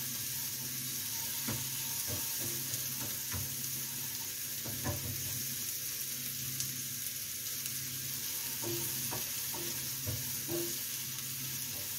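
Chopped onions sizzling steadily in olive oil and butter in a small frying pan as they are sautéed until golden, with scattered scrapes and taps of a wooden spatula stirring them against the pan.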